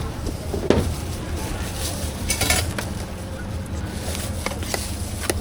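Food-preparation handling noises: a few light clinks and taps of utensils and containers, and a brief rustle about two and a half seconds in, over a steady low hum.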